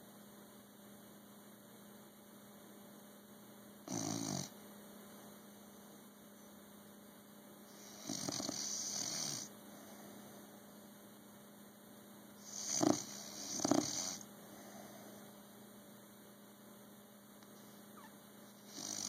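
A bulldog snoring in separate, irregular snores: a short one about four seconds in, a longer one around eight seconds, then two louder, shorter snores in quick succession about two-thirds of the way through, and another starting at the very end.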